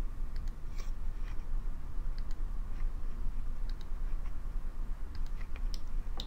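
Computer mouse clicks, a scattered handful over several seconds with a few close together near the end, over a steady low electrical hum.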